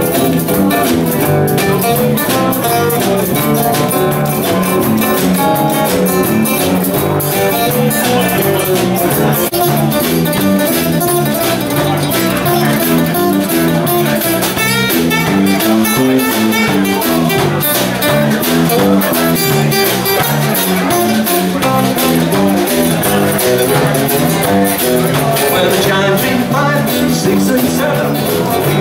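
Live band playing an instrumental passage: strummed acoustic-electric guitar over a walking electric bass line.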